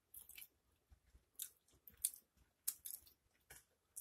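Close-miked eating of a pulled pork sandwich: a string of short, sharp wet mouth clicks and smacks, about half a dozen, spread through a quiet background.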